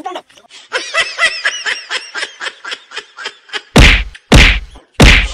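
Three loud stick whacks, evenly spaced about two-thirds of a second apart, start a little before the end. Before them comes a quick run of short, high, squeaky chirps.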